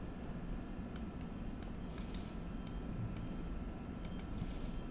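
Computer mouse and keyboard clicks: a dozen or so short, sharp clicks at uneven intervals, as the text is selected, copied and typed into a search box.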